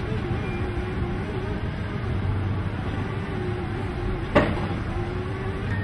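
Heavy diesel construction machinery running steadily with a low hum and a slightly wavering drone. One sharp click sounds about four seconds in.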